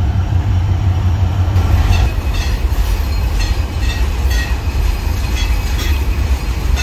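Bangladesh Railway intercity train passing close by: a steady low rumble, with the coaches' wheels clacking rhythmically over the rail joints about three times a second from about two seconds in.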